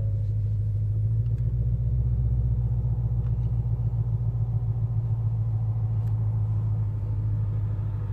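Ford Shelby GT350's 5.2-litre flat-plane-crank V8 idling just after start-up, heard from inside the cabin with the active exhaust valves closed. It is a steady, deep rumble that swells slightly a second or two in and eases a little near the end.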